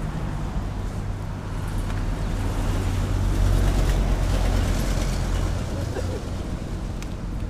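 Motorcycle engine running at a steady pace with wind and road noise, cutting in suddenly out of silence and growing a little louder in the middle.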